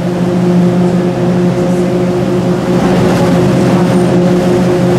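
Bus engine running with a steady drone, heard inside the passenger cabin, over a hiss of road and rain noise that grows a little louder about halfway through.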